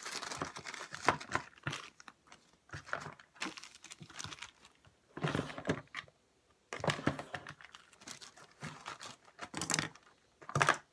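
Irregular plastic clatter and rustling as the drawers of a small plastic three-drawer storage organizer are pulled out, handled and slid back, with crinkling of plastic packets. The sounds come in short clusters separated by brief pauses.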